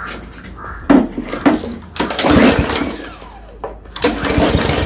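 Briggs & Stratton engine of a walk-behind lawn mower being pull-started: the recoil starter cord is yanked three times, and the engine turns over with each pull.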